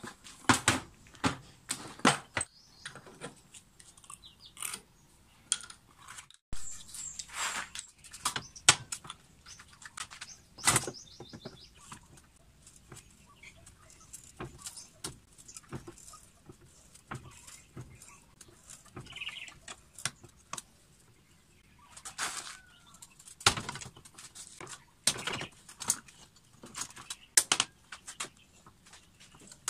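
Metal parts and hand tools clinking, clicking and knocking at irregular intervals as parts are fitted by hand to a bench grinder's shaft; the grinder motor is not running.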